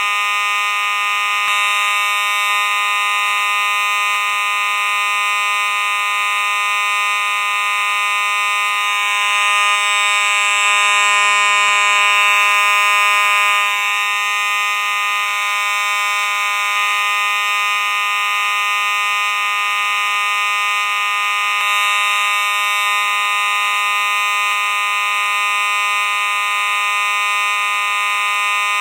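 Simplex fire alarm sounding a loud, steady, unbroken alarm tone.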